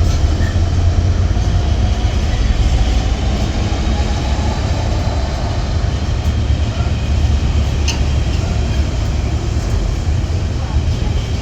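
Steady low rumble of a train, with a few faint clicks.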